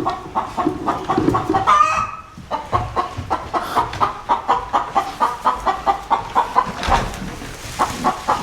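Chickens clucking, a dense run of short repeated clucks, with one longer call about two seconds in.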